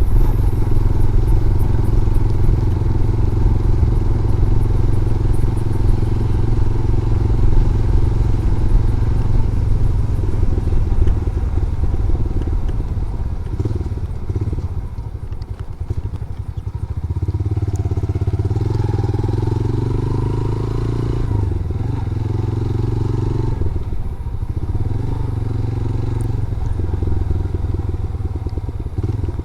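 Motorcycle engine running under way, its note easing off briefly about halfway through and then picking up again.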